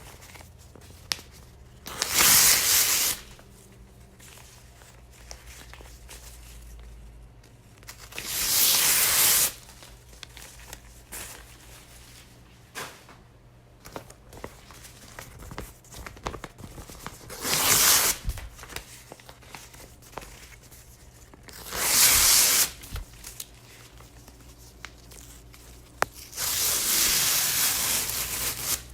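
Paper being torn, in five separate rips: four short ones and a longer, drawn-out tear near the end. Faint rustling and handling of the paper can be heard between the tears.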